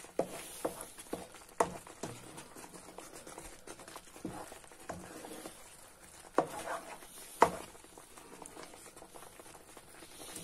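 Wooden spoon stirring thick semolina halva in a frying pan: irregular knocks and scrapes of the spoon against the pan over a faint hiss.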